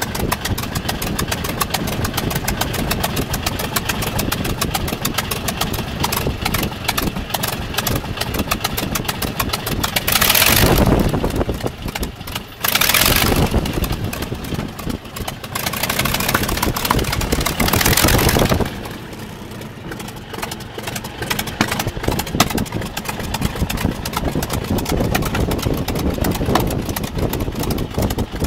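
Polikarpov Po-2's five-cylinder Shvetsov M-11 radial engine idling with a fast, even beat, heard from the open cockpit. Three short, louder swells of rushing noise come at about ten, thirteen and seventeen seconds in, then it runs quieter for a few seconds.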